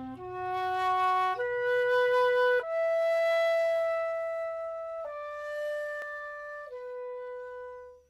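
Silver-plated L. L. Lebret flute (c. 1926–27) playing a slow phrase of long held notes. The phrase steps up over about three seconds to a note held for over two seconds, then comes back down. The tone is sweet and slightly hollow.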